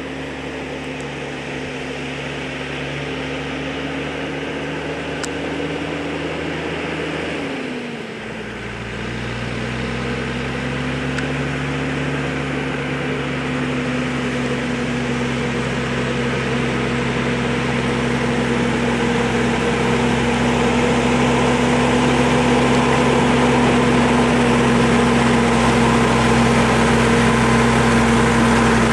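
Log truck's engine running with a steady hum. About seven and a half seconds in its pitch drops sharply, then settles back, and the engine grows gradually louder.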